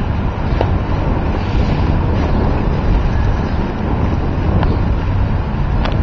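Wind buffeting the microphone: a steady low rumbling noise.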